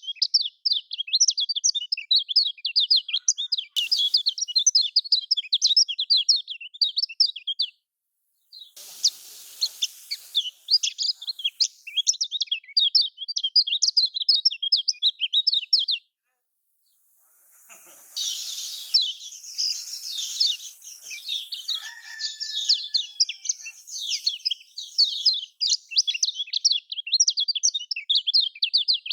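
Kecial kuning, a white-eye from Lombok, singing a fast, rapid-fire chattering song of closely packed high chirps, in long runs broken twice by brief silences.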